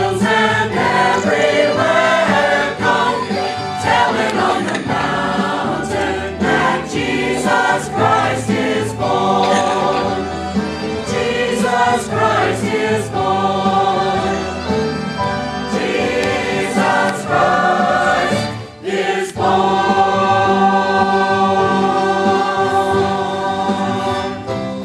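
Church choir singing a Christmas medley in many voices. There is a brief break about three quarters of the way through, then long held notes.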